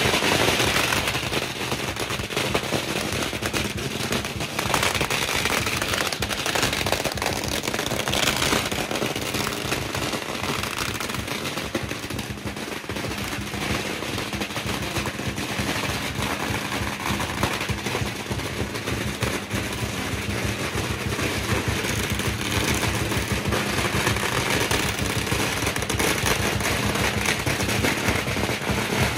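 A long string of firecrackers going off in a continuous, rapid crackle of bangs at a steady level.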